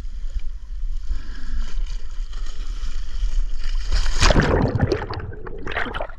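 Boat's outboard motor idling in neutral under sloshing water along the hull; about four seconds in, a loud splash as a diver goes over the side into the sea, then churning, bubbling water.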